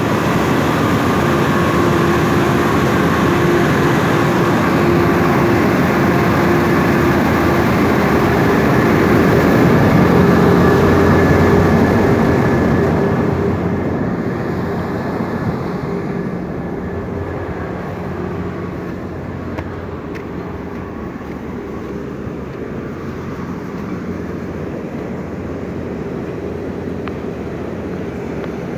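Machinery of a wheat processing plant running: a steady drone with a low hum and a few constant whines. It gets quieter about 13 seconds in and carries on as a softer drone.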